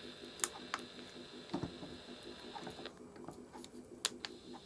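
A few sharp clicks, the buttons of an opened-up clock radio being pressed, over a faint steady low hum.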